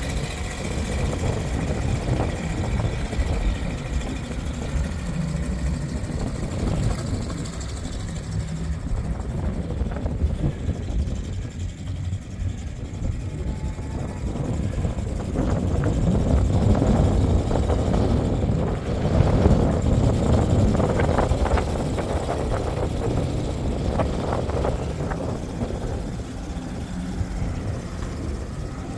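GMC feed truck's engine idling steadily, with a louder stretch of noise in the middle.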